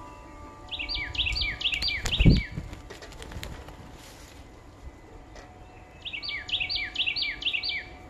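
A songbird sings the same rapid phrase twice, a few seconds apart, each time a string of about eight quick notes sweeping down in pitch. A loud thump with wing flutter comes about two seconds in, as birds land on and leave the feeder.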